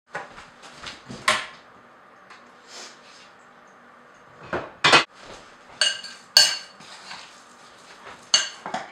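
Dishes clattering and clinking: dishware taken down from a kitchen cupboard, then a spoon knocking in a mixing bowl. About five sharp clinks stand out, one ringing briefly a little past the middle.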